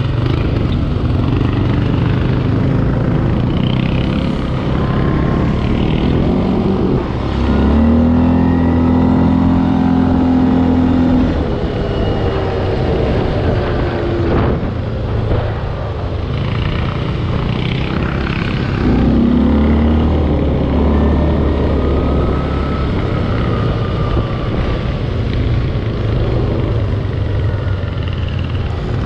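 Linhai 500 ProMax ATV engine running while riding, twice opening up to a higher, louder held note, about a quarter of the way in and again about two-thirds in, with a single knock in between.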